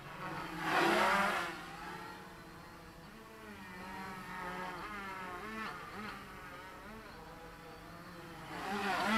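Quadcopter's four Avroto 770 KV motors with 10x4.5 propellers buzzing in flight, the pitch wavering up and down as the motor speeds change. It swells louder about a second in and again near the end.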